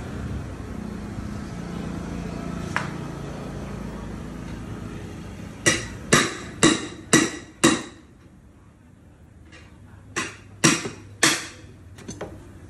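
Engine oil pouring steadily from a plastic bottle through a funnel into a motorcycle engine, then sharp knocks: five in a row about two a second, a short pause, and three more.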